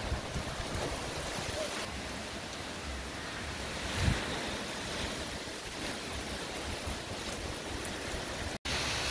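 Steady rain falling on garden trees and leaves, a constant hiss, with wind gusting against the microphone, one stronger gust about four seconds in. The sound breaks off for an instant near the end.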